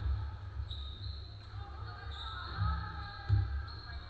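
A basketball bounced on a hardwood gym floor, a few low thuds, the loudest near the end.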